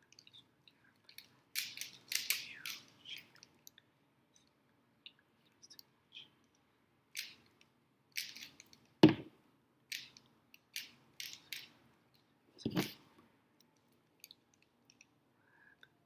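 Rubik's cubes being turned fast in a speed solve: plastic layers clicking and clacking in quick runs with short gaps, and twice a louder knock, about nine seconds in and again near thirteen.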